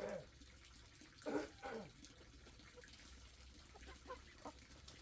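Faint splashing and trickling of water, as when water is poured or handled in a basin. There are short falling-pitch calls at the start and again about a second and a half in, and a few light ticks near the end.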